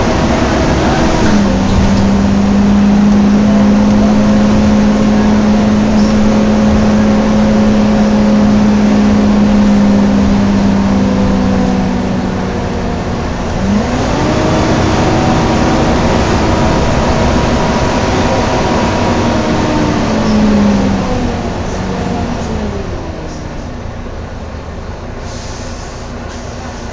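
Volvo B9TL bus heard from inside the saloon, its cooling fan giving a strong hoover-like whine over the engine and road noise. The whine drops in pitch about a second in, holds steady for a long stretch, jumps up sharply about halfway through, sags slowly, then falls away near the end as the whole sound gets quieter.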